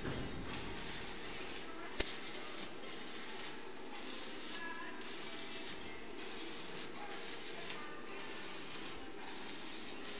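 Electric arc welding on a steel frame: a crackling hiss laid down in short runs, starting and stopping roughly once a second.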